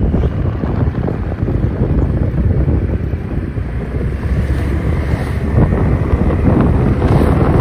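Wind buffeting the microphone of a moving motorbike: a loud, steady low rumble with road and engine noise mixed in underneath.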